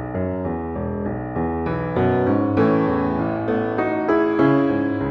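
Background piano music: a steady run of notes, about two or three a second, filling out and getting brighter about two seconds in.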